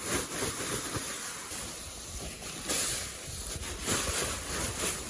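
Strong wind gusting around a cotton bell tent, with low wind rumble on the microphone and louder surges about halfway through and again near the end.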